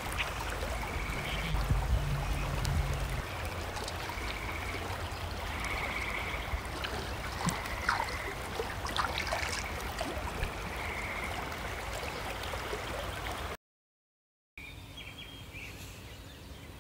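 Spring-creek water flowing and gurgling steadily, with a short high trill repeating every second or two above it. It breaks off about three-quarters of the way through into a second of silence, followed by a quieter hush.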